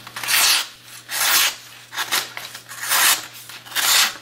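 A small household kitchen knife slicing through a sheet of hand-held paper, about five rasping cutting strokes roughly a second apart. The blade is still fairly sharp but struggles in places to cut the paper.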